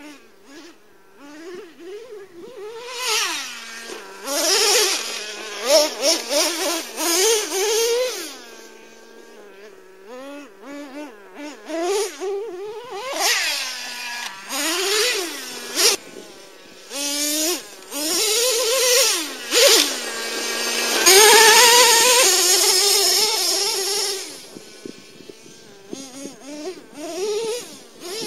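Traxxas T-Maxx RC truck's modified 3.3 two-stroke nitro engine, fitted with a drilled-out resonator pipe, running with a high-pitched buzz. It drops back to idle between short throttle blips that rise and fall in pitch, with a longer full-throttle run about three quarters of the way through, the loudest part.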